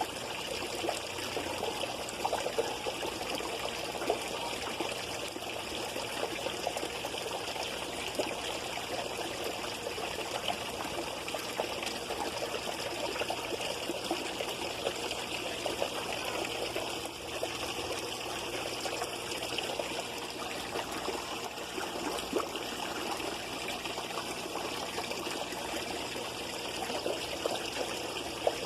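Water trickling and splashing steadily in a backyard fish pond, with scattered small splashes.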